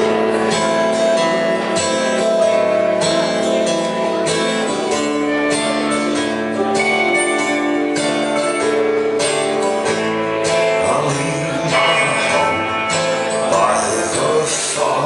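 A live folk band playing an instrumental passage: long held notes moving from chord to chord, with more strumming and plucking joining in about two-thirds of the way through.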